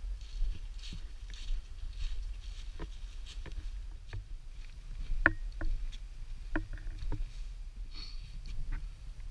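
Hiking footsteps crunching through dry fallen leaves on a rocky trail, with irregular sharp clicks of trekking-pole tips striking rock, the loudest about halfway through. A low rumble of movement on the body-worn action camera's microphone runs underneath.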